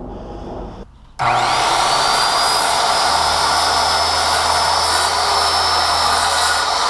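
Skilsaw circular saw with a Diablo blade starting about a second in, its high whine rising quickly, then running steadily as it cuts through a wooden board.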